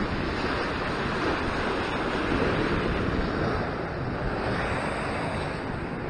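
Sea surf washing against a rock ledge: a steady rush of noise, with wind on the microphone.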